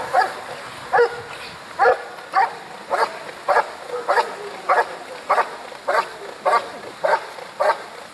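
Airedale Terrier barking steadily at the helper in the blind, about two barks a second, in the IPO hold-and-bark: the dog guards the cornered helper by barking and does not bite.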